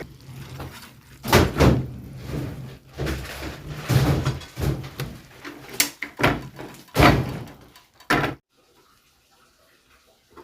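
A series of knocks and thuds over a steady low hum; the hum and knocking stop suddenly about eight seconds in.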